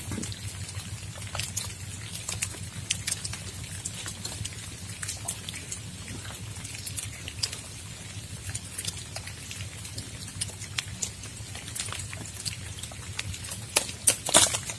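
Raindrops falling on a tent in irregular taps over a steady low rumble, with a cluster of louder taps near the end.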